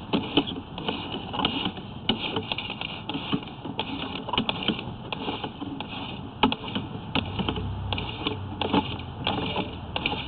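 Irregular clicks and knocks from a sewer inspection camera's push cable being fed along a cast iron drain pipe, the camera head bumping through it.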